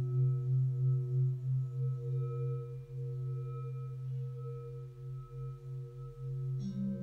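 Organ music: soft held chords of steady, pure-toned notes over a slightly wavering low note, moving to a new chord near the end.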